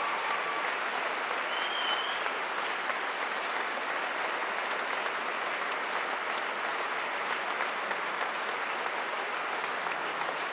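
Audience applauding steadily in a concert hall, dense continuous clapping.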